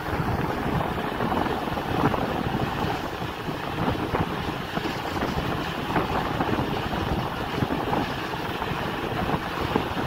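Wind buffeting the microphone over the road noise of a moving vehicle: a steady, rough rushing with a low rumble.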